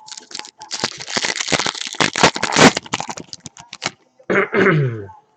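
Trading-card pack wrapper being torn open and crinkled: a dense run of crackles and clicks lasting about four seconds.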